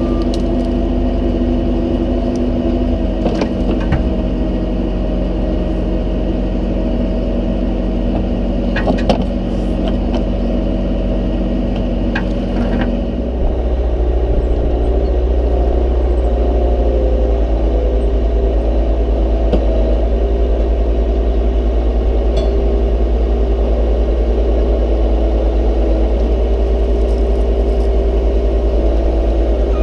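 Vehicle engine running steadily, with a few sharp clicks and knocks in the first half. About 13 seconds in the engine note changes abruptly to a different, steadier set of tones.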